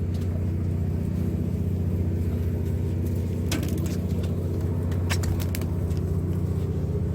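Fishing boat's engine running with a steady low drone, and a few sharp clicks about three and a half and five seconds in.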